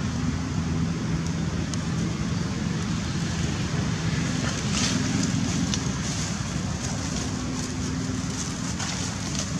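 Steady outdoor background rumble with a low hum and a hiss, without change; a few faint ticks here and there.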